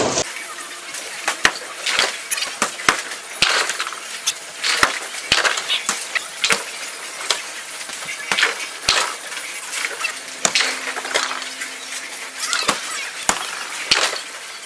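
Bowling alley clatter: pins crashing and balls knocking on the lanes, with many sharp, irregular wooden cracks and clacks.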